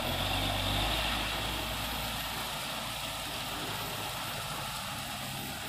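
A vehicle engine running steadily. The low rumble is strongest in the first second or two, then eases off slightly.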